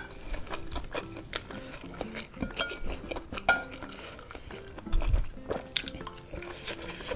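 Metal fork and spoon clinking and scraping against a ceramic bowl of baso aci meatballs in spicy broth, with a dull low knock about five seconds in, over steady background music.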